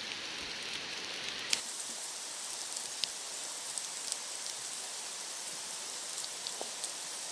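Rain falling, a steady hiss, with a few sharp clicks of sticks being laid onto a stick shelter frame.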